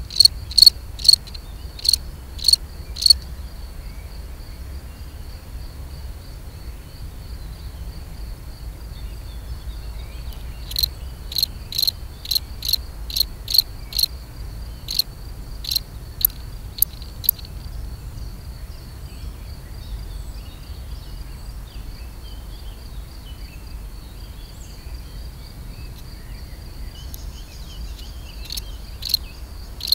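Male European field cricket (Gryllus campestris) singing its mating song. Loud, high chirps come about two a second in bouts: at the start, from about ten to seventeen seconds in, and again near the end. A fainter steady trill at the same pitch fills the gaps between bouts.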